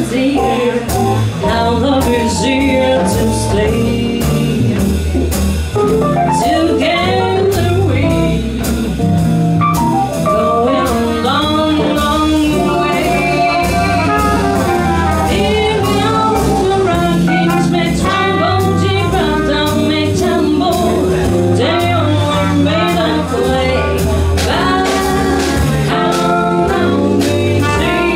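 Live swing jazz band playing: a woman sings over trumpet, saxophone, piano, guitar, double bass and drums.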